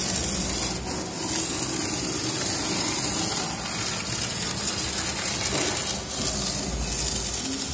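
Maheer Technologies MTR-1325-S CNC router's high-speed spindle milling a block of thermocol (expanded polystyrene foam): a steady, hissy rush of cutting noise that holds at an even level throughout.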